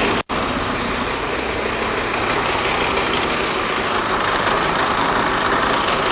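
Polaris AXYS snowmobile's two-stroke engine idling steadily just after start-up, with the drive belt riding on the spinning primary clutch; the sound cuts out for an instant a fraction of a second in. The belt deflection has just been tightened: the belt has a little tension but does not turn the secondary clutch or squeal at idle.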